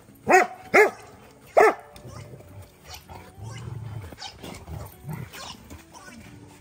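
Dog barking three times in quick succession during rough play, each bark short and loud. Quieter, lower grumbling sounds follow as the dogs wrestle.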